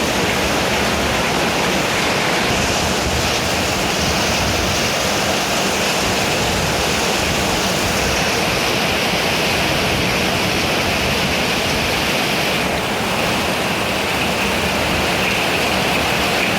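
Heavy rain pouring in a windstorm, a steady, even rush of noise with no let-up.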